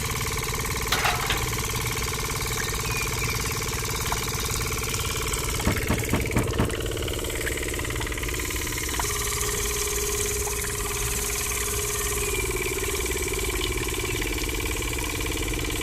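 A small engine running steadily, with a few short knocks about a second in and a cluster of knocks around six seconds in.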